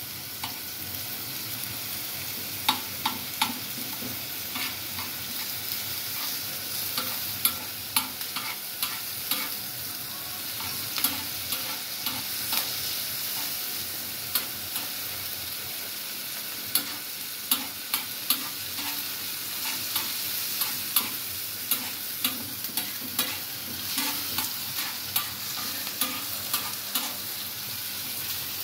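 Chopped tomato, onion and green chilli sizzling in oil on a flat tawa griddle, with irregular sharp clicks of a knife blade tapping and scraping the griddle as the vegetables are stirred and chopped.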